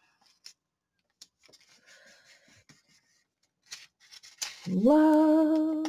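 Faint rustling and small clicks of paper washi stickers being peeled from their backing and pressed down by hand. Near the end a woman's voice sings one long note that slides up and then holds, the loudest sound here.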